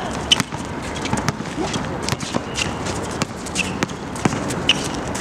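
Basketball bouncing on a hard outdoor court as players run a play: irregular sharp ball bounces with a few short squeaks.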